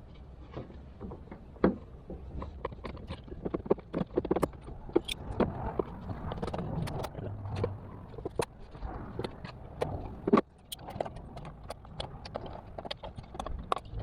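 Irregular small clicks, taps and rattles of hands working on car wiring and plastic connector parts, over a low steady hum.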